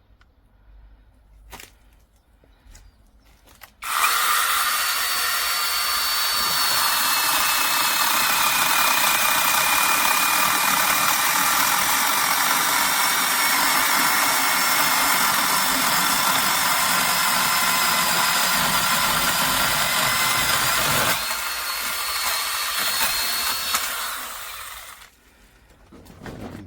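Brushless 6-inch battery mini chainsaw switched on about four seconds in, running with a steady high whine while cutting wood, its pitch sinking slightly under the load. Near the end it runs a little quieter for a few seconds, then stops.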